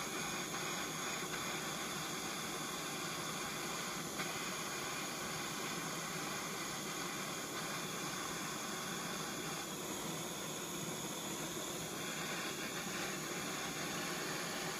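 Hand-held propane torch burning with a steady hiss as it heats flux in a steel horn tip, with one faint tick about four seconds in.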